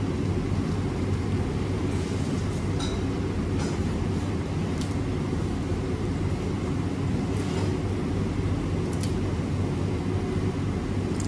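Steady low mechanical hum at an even level, with a few faint light clicks and clinks while food is eaten by hand from a plate.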